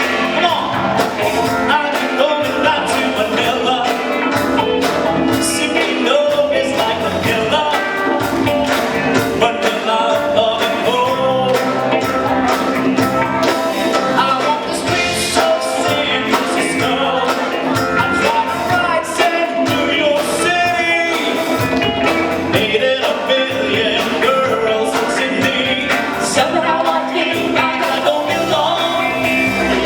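Live singing of a Tagalog song with instrumental accompaniment.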